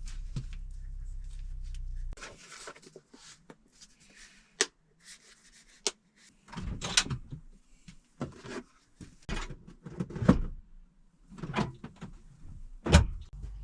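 Kitchen handling sounds in a small space: a low hum that stops about two seconds in, then irregular knocks, clicks and rustles of containers, lids and cupboard doors being handled, the loudest a sharp click near the end.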